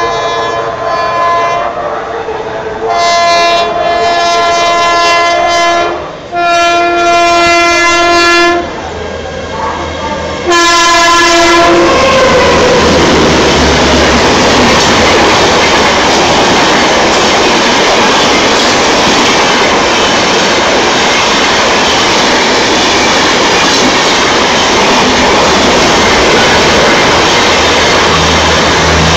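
Horn of a WAP-5 electric locomotive sounding a series of long blasts, the first fainter and the last three loud. About twelve seconds in, the express train takes over, running past at speed with a loud, steady rush and clatter of wheels on rails.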